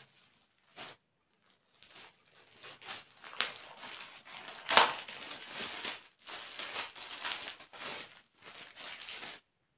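Plastic courier packet and clear poly clothing bags crinkling and rustling in irregular bursts as they are opened and handled, with a louder sharp crackle about five seconds in.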